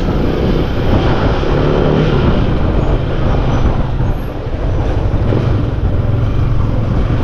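Motorcycle running on the road while ridden, a steady low engine drone under a dense rush of noise.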